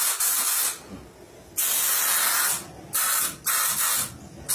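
Steam cleaning machine's nozzle hissing out pressurised hot steam at about 3–4 bar, in about four separate bursts of half a second to a second as the control is pressed and released.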